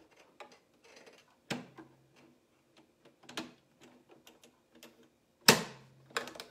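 Household electric sewing machine top-stitching slowly: the needle and feed tick along irregularly over a faint motor hum. Sharper clacks come about a second and a half in and again past three seconds, the loudest just after five seconds, and one more near the end.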